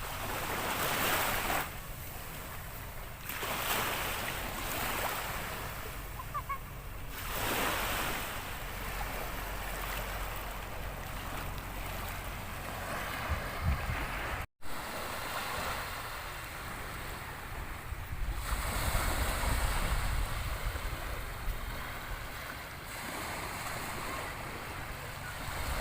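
Sea waves washing onto a beach, the surf swelling and falling back every few seconds, with wind rumbling on the microphone.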